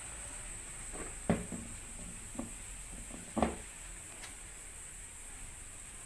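A few short knocks and clatters, two louder ones about a second and three and a half seconds in, over a faint steady hiss.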